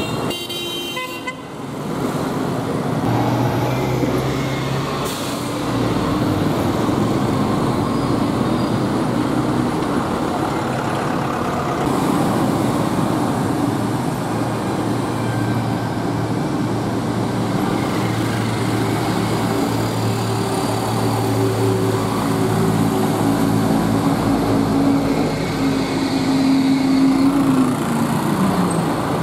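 Busy street traffic: motorcycles, scooters and buses passing in a steady stream of engine hum and tyre noise, with occasional horn toots. Near the end a passing engine drops in pitch.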